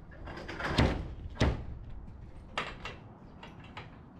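Enclosed cargo trailer's rear ramp door being lowered, landing on the pavement with two loud thumps about a second in and a second and a half in. Lighter knocks follow as someone steps up the ramp into the trailer.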